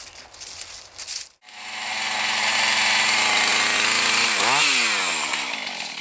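Footsteps rustling in dry leaves for about a second, then a gas chainsaw running at high revs. Its pitch dips and comes back up about three-quarters of the way through, and it fades out near the end.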